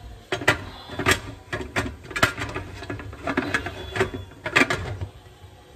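Metal pressure canner lid being set on the pot and twisted by its handle to lock: a run of irregular metal clicks and clanks.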